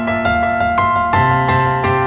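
Background music: a piano-like keyboard playing sustained chords with notes struck every few tenths of a second, changing chord about a second in.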